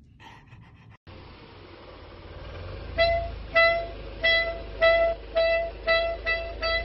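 A car's reversing parking sensor beeping: one pitched beep repeating, coming faster and faster as the car backs closer. Under it runs a low steady rumble. The beeps begin about three seconds in.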